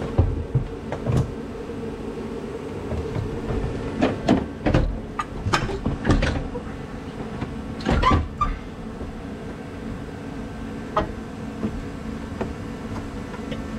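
2007 Toyota Prius hybrid battery pack being shifted and seated in the car body: a series of irregular knocks and clunks, thickest from about four to six seconds in and again around eight seconds, over a steady background hum.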